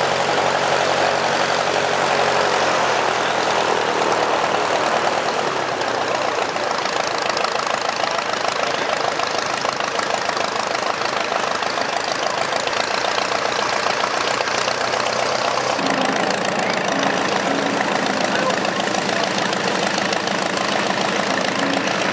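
de Havilland Moth Minor's four-cylinder Gipsy Minor engine running at low power as the aircraft taxis, a steady fast pulsing beat from the propeller and exhaust. The engine note changes about two-thirds of the way in.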